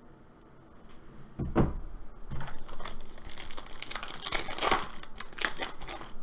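Foil wrapper of a 2020 Panini Elite Extra Edition baseball card pack being torn open and crinkled by hand, a quick run of crackling from about two seconds in. A single thump comes just before, about a second and a half in.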